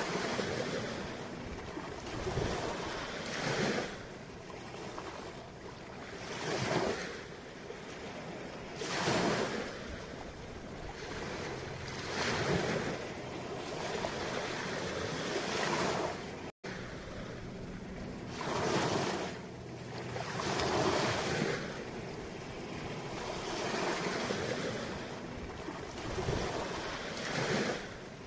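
Sea waves washing in and out, each swell rising and falling every two to three seconds. The sound cuts out for an instant about halfway through.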